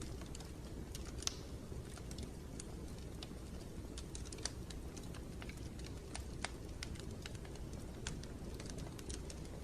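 A steady low rumbling noise with small, sharp crackles and ticks scattered irregularly over it, a few a second.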